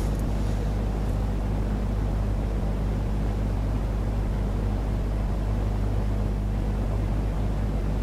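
A steady low droning hum, held at an even level throughout, with a few faint ticks right at the start.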